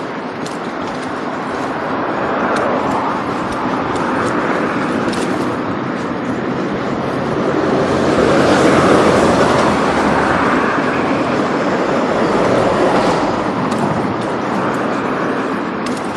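Steady rushing vehicle noise that swells to its loudest about halfway through and then eases, with a few faint clicks.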